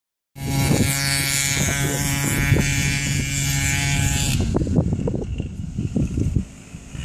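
Off-road motor vehicle engine running loudly at a steady pitch for about four seconds, then rising and falling unevenly as the throttle is worked, before dropping away near the end.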